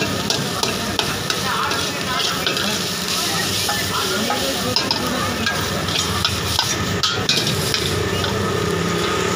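Noodles stir-frying in a wok over a gas burner: steady sizzling, with a metal ladle scraping and clanking against the wok several times a second in an uneven rhythm.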